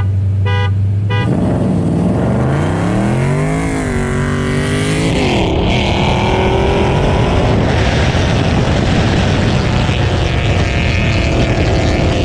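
Three short beeps over an idling engine, then the 2018 Dodge Durango R/T's 5.7-litre HEMI V8 launching at full throttle. The engine revs climb hard, drop back at gear changes and climb again.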